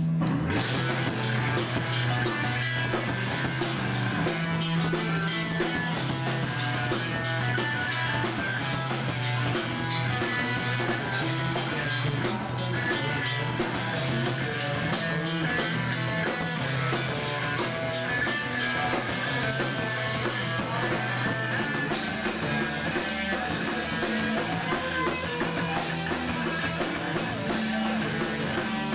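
Live rock band playing loud: distorted electric guitars, bass and a drum kit.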